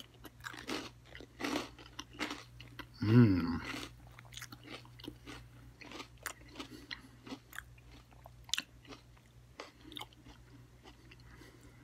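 A person chewing a mouthful of salad with croutons and raw vegetables: irregular crunches and wet mouth clicks. About three seconds in there is a short hum, the loudest sound in the stretch.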